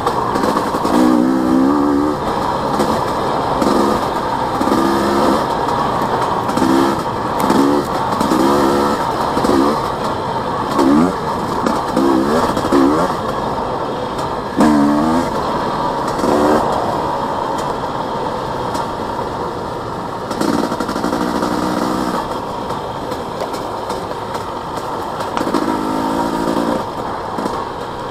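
Husqvarna TE250i two-stroke enduro motorcycle engine riding along a dirt trail, its revs rising and falling in short pulls about once a second, then in a few longer pulls in the second half. A steady rush of wind and road noise runs underneath.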